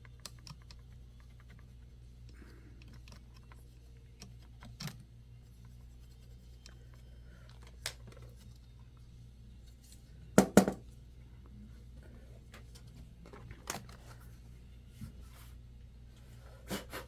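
Plastic pry tool scraping and picking at hardened, dried-out thermal paste on a laptop's cooling parts: scattered small scrapes and clicks, with a louder double knock a little past halfway.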